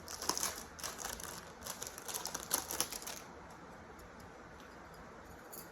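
Light bangles clicking and tapping against one another as they are handled, a quick run of small clicks that stops about three seconds in.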